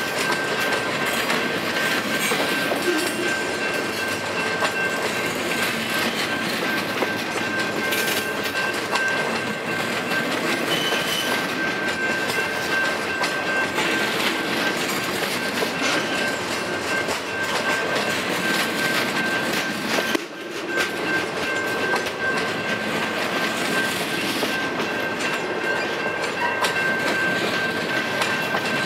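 Loaded freight cars, log flatcars and boxcars, rolling steadily past, their wheels clacking over the rail joints. A steady high-pitched ring sounds over the rumble throughout.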